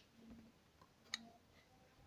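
Near silence with one sharp click a little over a second in, from the monitor's plastic stand being handled.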